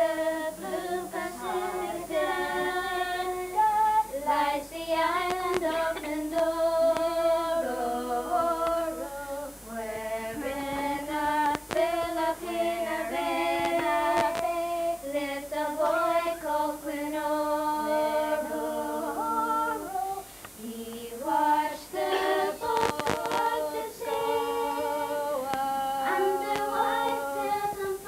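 Unaccompanied singing: a woman's voice carries a slow melody in long held notes.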